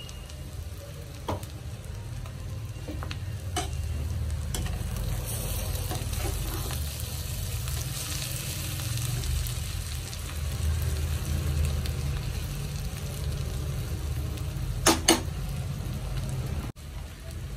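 Chicken pieces frying in a pan, sizzling while they are stirred and turned with a metal spoon, over a steady low rumble. Two sharp knocks of the spoon against the pan come near the end.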